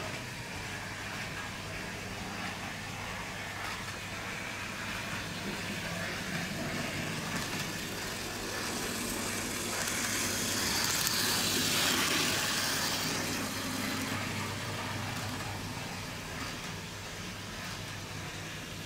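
Bachmann OO gauge Wickham Type 27 trolley's micro motor and wheels running on the track, growing louder to a peak about twelve seconds in and fading again as it passes, over a steady low hum.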